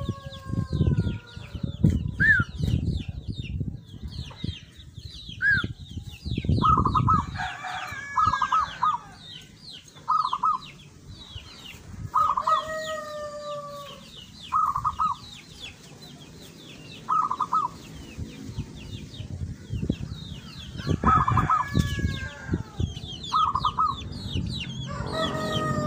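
A zebra dove (perkutut) sings its rapid staccato cooing phrases, about eight short bursts spaced two to three seconds apart. A rooster crows several times behind it, and small birds chirp faintly throughout.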